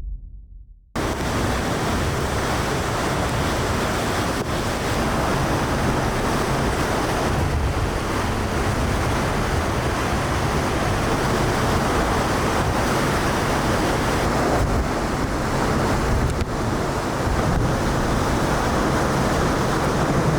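Typhoon storm noise: a loud, dense, steady rush of wind that cuts in abruptly about a second in.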